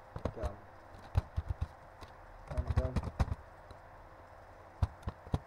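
Computer keyboard typing: irregular clusters of keystroke clicks with short pauses between them, a quieter gap a little before the end.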